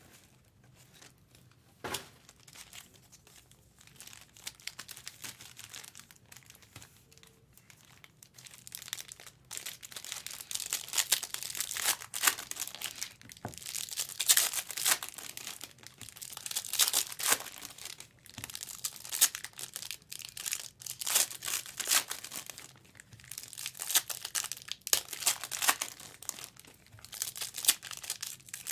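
Plastic trading card pack wrappers being crinkled and torn open, with cards handled. Quiet at first with a single click, then busy crackling from about eight seconds in.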